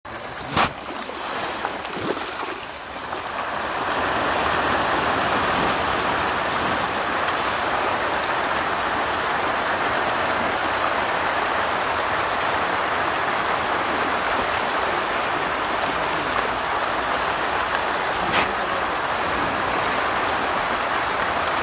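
Heavy, continuous splashing of pond water churned by a dense crowd of fish thrashing at the surface. It builds over the first few seconds, then holds steady, with a sharp knock just after the start and another near the end.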